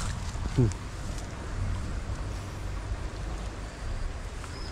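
Outdoor background noise: a steady low rumble, as of wind and handling on the microphone, with a brief falling vocal sound about half a second in.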